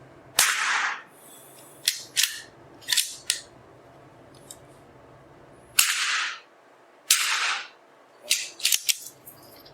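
Three shots from an Anschutz 1903 .22 LR target rifle, each a sharp crack with a short echoing tail, about half a second in, near six seconds and about seven seconds. Smaller sharp clicks and knocks come between and after the shots.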